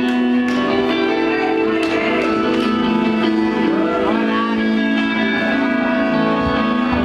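Electric guitar playing live through an amplifier: long, sustained ringing notes, with a few slow pitch bends.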